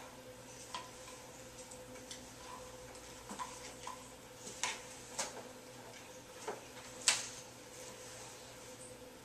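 Scattered light clicks and taps of cables and plastic plugs being handled and bundled against a printer's plastic case, with one sharper click about seven seconds in. A faint steady hum sits underneath.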